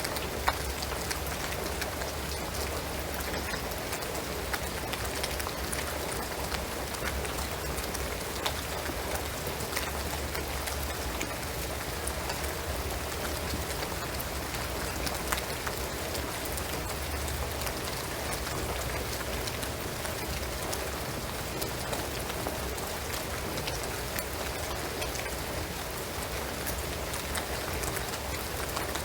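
Steady rain falling on a shingled roof and pine trees: an even hiss dense with small drop ticks, with a few louder single drips standing out.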